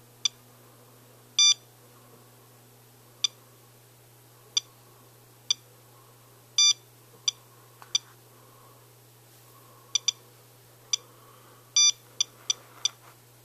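SOEKS handheld radiation dosimeter beeping at irregular intervals as it registers radiation from a rain sample, with the reading at about 0.5 µSv/h, over three times the usual background. The beeps are short, uneven in spacing and sometimes bunched close together, with three longer beeps among them.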